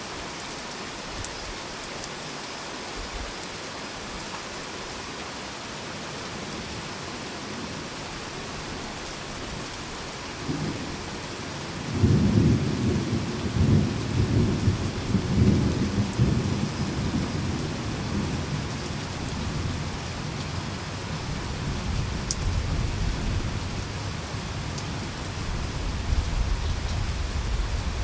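Heavy rain falling steadily, with a roll of thunder: a low rumble builds about ten seconds in, breaks loudest a couple of seconds later, and rolls on more quietly to the end.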